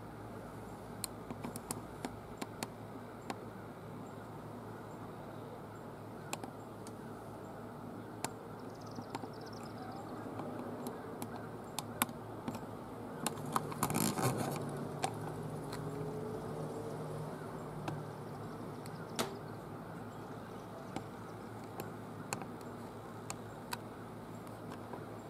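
Scattered sharp clicks and taps from a handheld camera being handled and zoomed, over a steady low outdoor hum. About halfway through the clicks come thick and fast for a second or two, with a faint low tone alongside.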